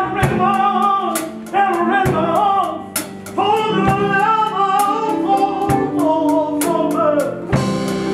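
Live soul band playing a slow ballad: drum kit striking about once a second over sustained bass and keyboard, with a bending lead melody line on top.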